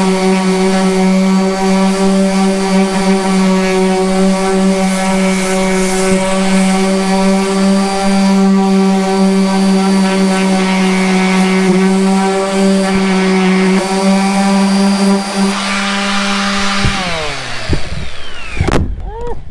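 Harbor Freight 2.8 amp 5 in. random orbital palm sander running at a steady high speed while sanding a fiberglass blob on a canoe hull. Near the end it is switched off and winds down, its hum falling in pitch.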